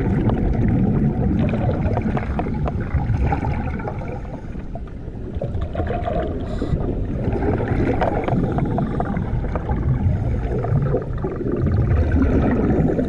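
Scuba divers' exhaled air bubbles heard underwater, a gurgling, crackling rumble that swells with each breath out and fades between breaths.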